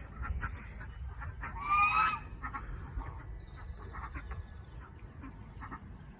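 Farmyard poultry calling in short repeated notes, with one louder honking call about two seconds in.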